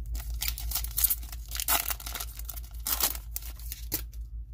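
Plastic wrapper of a trading-card pack being torn open and crinkled by hand, in several irregular rustling bursts.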